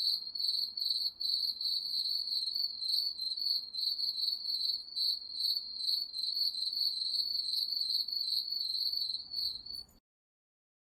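Crickets chirping: a shrill, rapidly repeated run of chirps that cuts off abruptly near the end.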